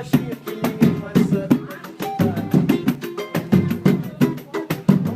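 Live pagode band playing: a steady samba beat of sharp drum and percussion strikes, with a melody over it.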